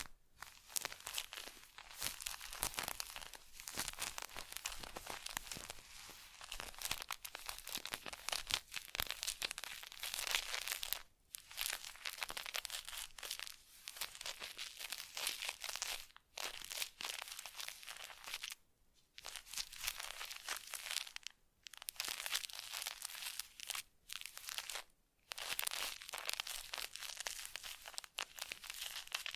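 Close-miked crinkling and scratchy rustling, dense with fine crackles, coming in stretches broken by several brief pauses.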